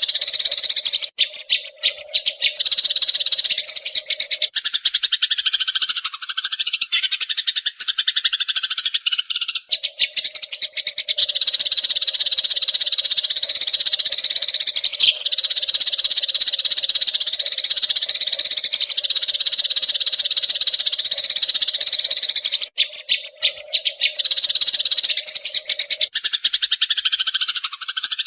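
A flock of Eurasian tree sparrows chattering nonstop in dense, rapid chirps, with brief thinner moments about a second in and again near the end. A low steady hum runs underneath in stretches, stopping and starting.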